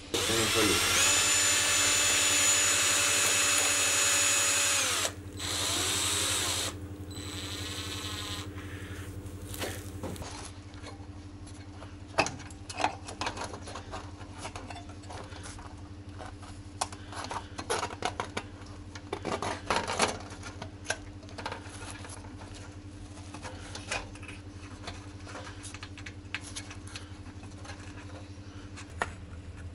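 Cordless screwdriver fitted with a long bit, driving a long self-tapping screw down to a set height: a steady motor whine for about five seconds, then two shorter runs with wavering speed. For the rest there are only soft clicks and rustling as wire is twisted by hand to tie a metal screed guide rail to the screw heads.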